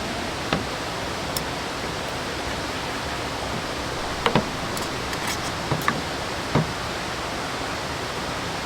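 Waterfall and stream water rushing in a steady, even hiss, with a few short clicks or knocks over it.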